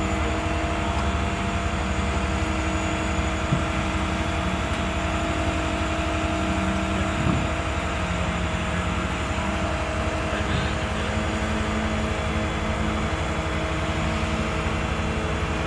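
Hydraulic excavator's diesel engine running steadily, with a low pulsing rumble and a constant hum, and a couple of light knocks.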